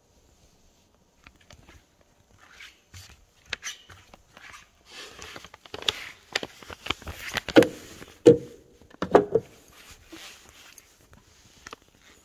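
Irregular clicks, rustles and knocks of someone moving about and stepping out beside a car, with two louder knocks a little past halfway.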